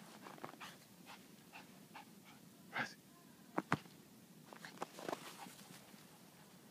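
A small dog plunging through deep snow: scattered soft crunches and breathy dog sounds, with one louder breathy sound a little before the middle and a couple of sharp knocks just after it.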